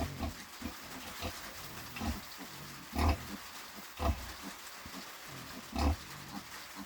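Nursing sow grunting to her newborn piglets: a run of short, low grunts, with three louder ones spaced about a second or two apart.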